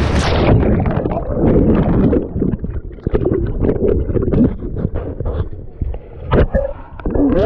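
Whitewater rapids heard from under the water: the hiss of the river cuts off suddenly as the microphone goes under, leaving muffled gurgling and bubbling, with a few louder splashes near the end as it breaks the surface beside the raft.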